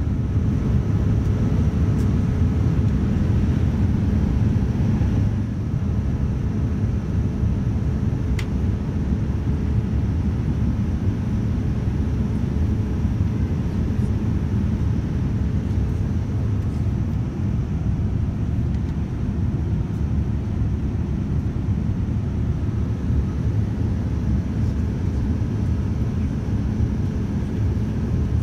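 Steady rumble and hiss of a Boeing 787-9 airliner's cabin in cruise flight, from engine and airflow noise. There is a single light click about eight seconds in.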